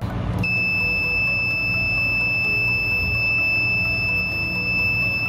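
Piezo buzzer of a rain-sensor alarm sounding one continuous high-pitched tone, triggered by water on the sensor plate, over a steady low room rumble.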